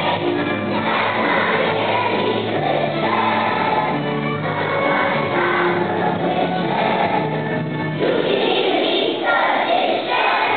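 Elementary school children's choir singing together over an instrumental accompaniment with a steady bass line.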